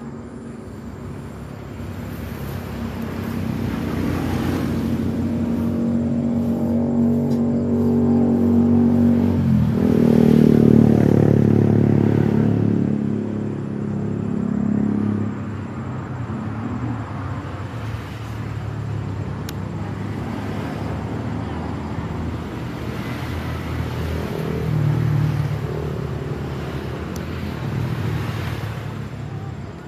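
Road traffic: a motor vehicle's engine grows louder over the first ten seconds and drops in pitch at its loudest point, about ten seconds in. Steady engine and road noise follows.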